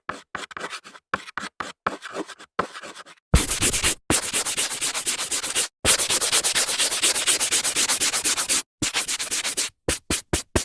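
Chalk scraping on a blackboard: short separate strokes at first, then about five seconds of dense, rapid back-and-forth rubbing, then a few short strokes again near the end.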